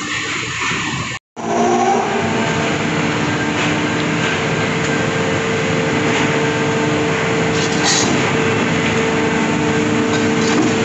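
Side arm charger of a wagon tippler hauling a loaded coal wagon forward along the rails: a steady mechanical drone with a few steady hum tones. It breaks off briefly about a second in.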